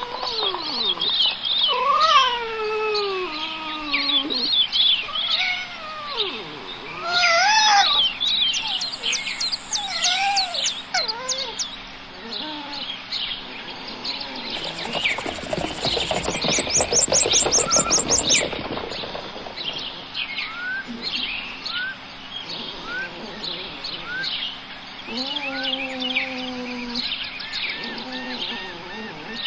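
Birds chirping and calling throughout. Louder, falling, mewing calls come near the start and again near the end, and a rasping, rattling buzz sounds around the middle.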